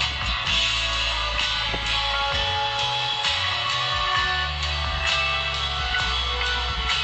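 Music played through a car sound system: an instrumental guitar passage over heavy, sustained bass notes.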